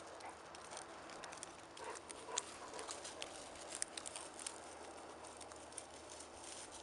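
Faint, irregular crunching and crackling of footsteps through dry stubble and frozen ground, a little louder about two to four seconds in.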